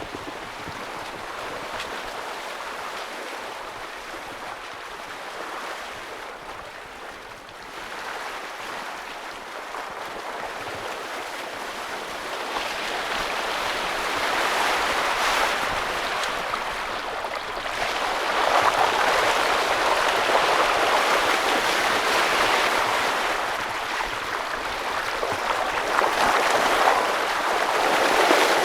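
Water rushing and splashing along the hull of a small Westerly Centaur sailing yacht moving fast under sail in a strong wind, the sound of the boat making good speed. The rush grows louder about halfway through and stays louder.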